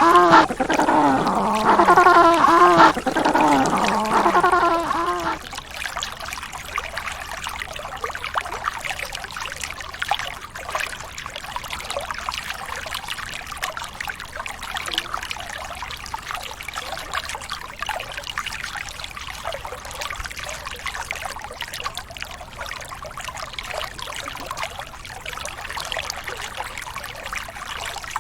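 A penguin calling in a run of repeated, rising-and-falling cries, stopping about five seconds in. After that, water trickles and splashes steadily.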